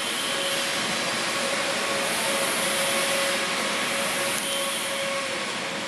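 SH-607 ginger chopping machine, with its 1.5 kW electric motor, running steadily: an even rushing whir with a constant whine, the whine dying away shortly before the end.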